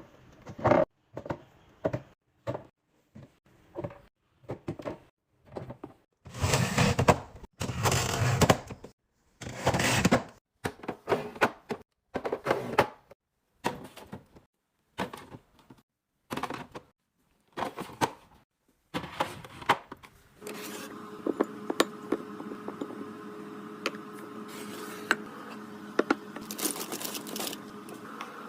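Containers and food packages being handled and set down while a refrigerator is organised: a series of separate knocks, clicks and clinks, with a few longer rustling stretches. About two-thirds of the way through a steady hum sets in, with more clicks over it.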